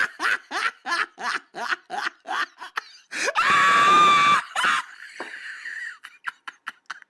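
A person laughing hard: quick bursts of laughter about three a second, then a long high-pitched shriek of laughter about three seconds in, the loudest part, trailing off into wheezy breaths.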